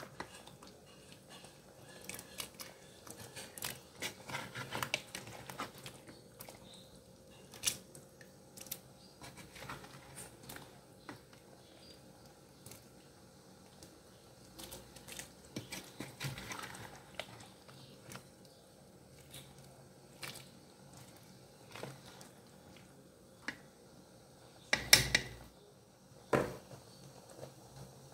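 A ladle moving through a pot of curry, with scattered light clicks and knocks against the metal pot, and two louder knocks near the end.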